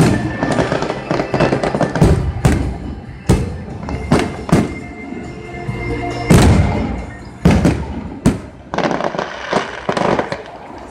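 Aerial firework shells bursting in quick succession, a dozen or more sharp bangs with crackling between them, over pop music playing on the stadium sound system.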